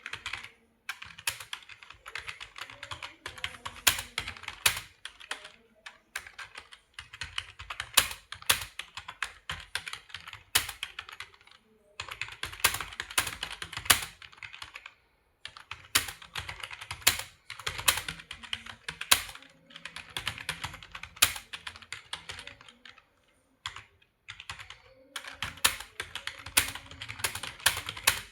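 Fast touch-typing on a computer keyboard during a typing speed test: dense runs of key clicks broken by short pauses, with some louder single keystrokes standing out.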